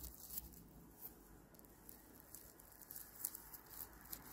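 Faint crinkling and scratching of raffia yarn as it is worked with a crochet hook, a few soft ticks scattered through.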